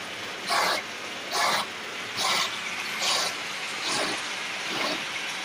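Boring bar of a hydraulic boring machine cutting a large bore in a heavy metal frame. The cutter gives a scraping burst a little more than once a second, very regular, over a steady hiss of cutting and machine noise.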